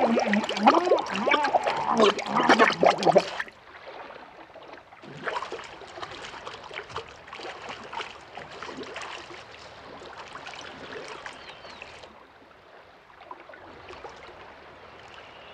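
A drowning man's choking laughter and gasps, with water splashing around his face. About three and a half seconds in it cuts suddenly to a quieter, muffled wash of water with faint gurgling.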